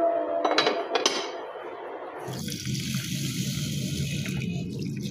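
A glass lid set onto a dish with two sharp clinks, then water poured from a jug into a steel bowl of long-grain rice, a steady splashing pour that starts about two seconds in.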